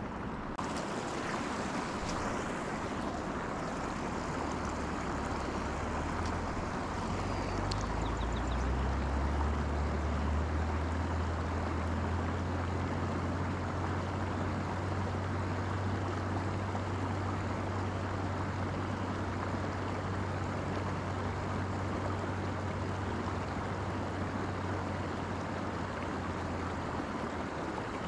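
Steady rush of flowing river water. A low droning hum joins it a few seconds in, rises in pitch, holds steady and stops near the end.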